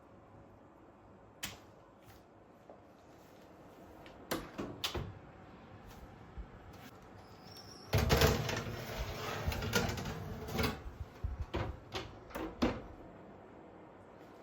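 Household handling sounds: scattered clicks and knocks, with a louder, busier stretch of clatter and rustle from about eight to eleven seconds in.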